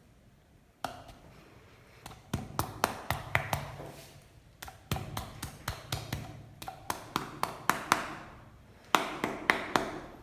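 Percussive massage strokes: hands tapping and slapping on a person's body in quick runs of about four strikes a second, with short pauses between the runs.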